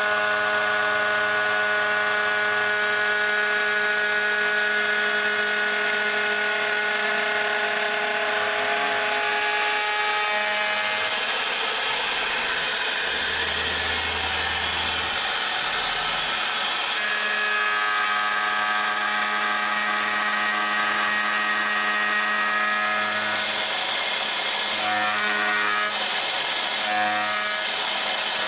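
A DIY CNC router's 4.5 kW spindle milling aluminium: a steady high-pitched whine made of several held tones over a constant hiss. The tones fade for a few seconds around the middle, then return, and waver near the end.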